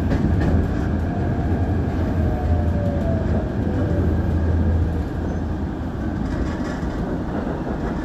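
Former Hibiya Line electric commuter car running along the track, heard from inside the car as a steady low rumble. Faint falling tones come in the middle, and the rumble drops off about five seconds in.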